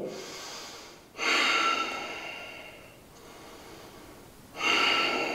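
A man breathing audibly while holding a seated spinal twist: two long breaths, one about a second in and one near the end, each starting sharply and fading away.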